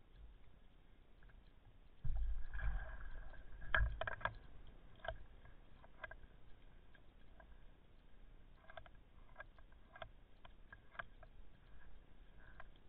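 Water sloshing and splashing around a camera in a waterproof housing at the sea surface, with a loud rumbling burst of splashes and knocks about two seconds in, then scattered clicks and knocks.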